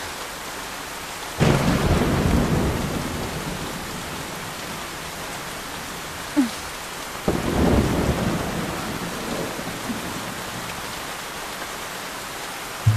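Steady heavy rain with two thunderclaps, one about a second and a half in and another about seven seconds in, each rumbling away over a few seconds.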